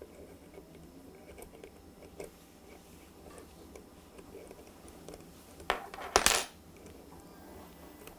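Small metal parts of a rail bender (screw, collar, lock washer, rolling die) clicking faintly as they are handled, then clinking loudly together a few times about six seconds in.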